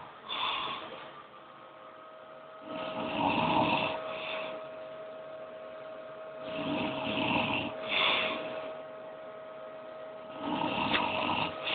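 A person snoring in their sleep, one long snore about every four seconds, with a shorter one at the start.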